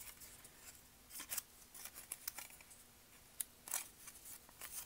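Faint, scratchy rustling of a paper flower petal being curled back by hand over a wooden dowel, in a few short scrapes.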